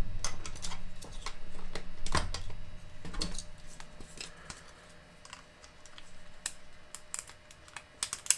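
Irregular light clicks and taps of plastic parts being handled and pushed together as a cordless screwdriver's housing is reassembled. They are louder in the first few seconds and fainter and sparser after.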